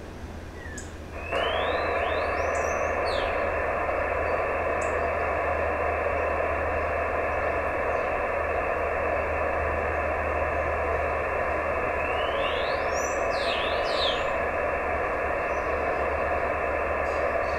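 Steady hiss from an Icom IC-910H transceiver's receiver listening on 432 MHz for a moonbounce (EME) signal; the band-limited noise comes on abruptly about a second in. Short high chirps are heard twice over it, around two and thirteen seconds in.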